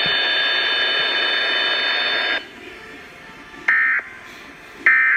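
A steady hiss with faint steady tones cuts off abruptly about halfway through. Two short, harsh electronic data bursts follow, about a second apart: the Emergency Alert System's end-of-message tones that close the broadcast test.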